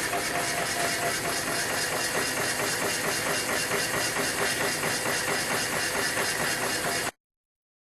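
1927 Cadillac 314 V8 engine running at a steady idle, with a fast, even pulsing beat. It cuts off suddenly about seven seconds in.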